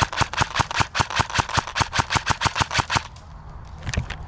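Airsoft gun firing a rapid string of shots, about seven a second, that stops about three seconds in; one or two more shots follow near the end.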